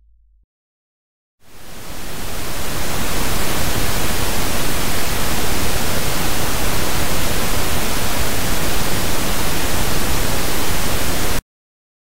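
Pink noise calibration signal, played as a reference for setting the listening level to 60 dB. It swells in over about a second, holds steady, and cuts off suddenly near the end. A faint low hum dies away in the first half-second before it.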